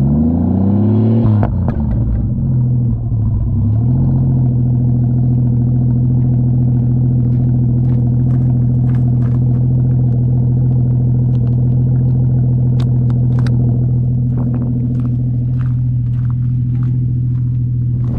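Ford FG Falcon Turbo's turbocharged inline-six through a 4-inch exhaust with the rear muffler deleted and shotgun tips: a quick rev that rises and falls back, then a steady low idle rumble for the rest, with scattered sharp ticks in the second half.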